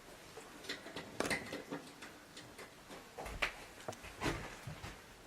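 Faint, scattered light clicks and knocks, with a couple of duller thumps about three to four and a half seconds in.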